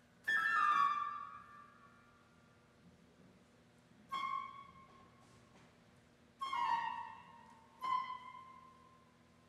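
Chamber ensemble playing contemporary concert music: sparse, high-pitched accented notes. There are four sudden attacks, each dying away over a second or so, with quiet pauses between them.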